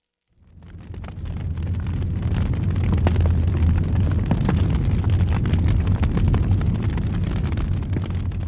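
Campfire of twigs and branches burning strongly: the flames crackle with many small pops over a steady low rumble. The sound fades in at the start.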